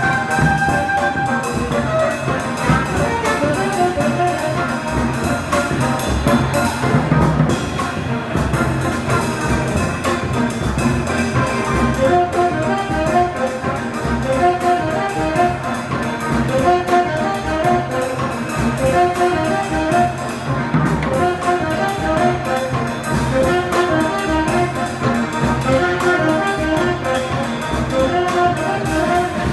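Live jazz band with a brass section of trombones and trumpets playing an up-tempo tune, the horns repeating a short riff over a steady beat.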